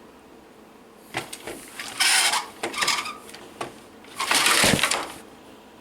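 Engine-like rasping sound effects made by mouth to play out a vehicle crash, in several noisy bursts, the loudest about two seconds in and another just after four seconds.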